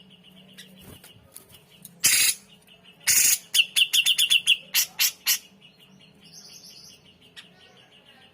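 Cucak jenggot (grey-cheeked bulbul) calling: a fast, steady series of chirps, about six a second. Loud harsh chattering bursts come in the middle, one of them a quick string of rasps.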